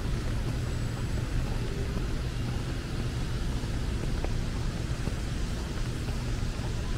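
Steady city traffic noise: a low engine rumble under an even hiss, with a few faint ticks.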